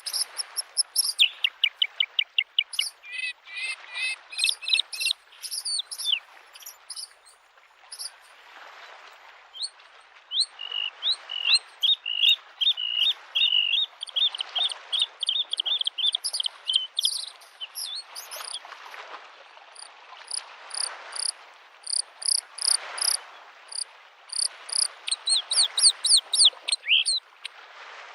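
Bluethroat singing a long, varied song of rapid repeated high notes and trills, over small lake waves lapping on the shore with a soft wash that swells every couple of seconds.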